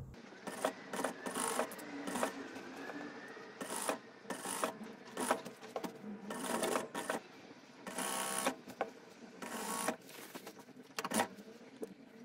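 Industrial lockstitch sewing machine stitching a bias binding along a skirt hem in short bursts, starting and stopping about a dozen times as the fabric is guided under the needle.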